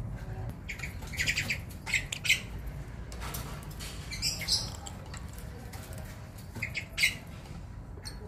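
Lovebirds giving short, high squawking calls in small groups, four times: about a second in, around two seconds, midway and near the end.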